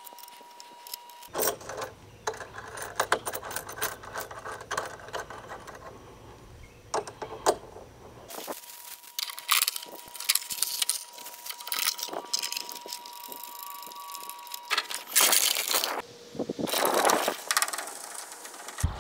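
Metal swing chain jingling and clinking as it is handled and hooked up, in irregular clusters of sharp metallic clicks.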